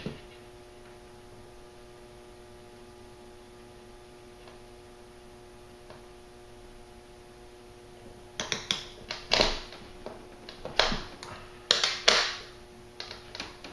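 Paracord being pulled and worked through a nylon shotgun sling by hand: a quiet stretch with only a steady low hum, then, from about eight seconds in, a run of sharp rustles and snaps as the cord is tugged tight.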